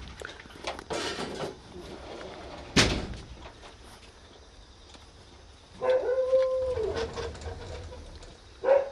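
Akita puppy whining: one drawn-out whine about six seconds in that holds and then drops in pitch, and a short whine near the end. A sharp knock about three seconds in, with rustling before it.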